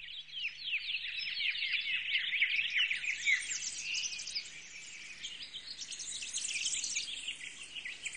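Many small songbirds chirping and twittering together, a dense chorus of quick high chirps, a little quieter in the middle.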